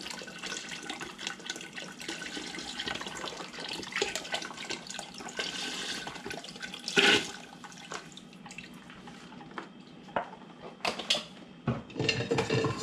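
Chicken broth pouring from a carton into a stockpot of roux, a steady splashing stream for about the first seven seconds, then quieter, with a few knocks near the end.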